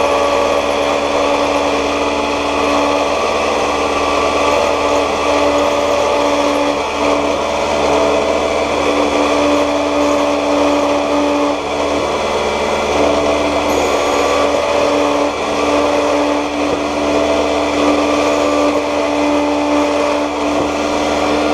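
Key-cutting machine running steadily, its motor humming while the cutter cuts a notch into a key to make a control key.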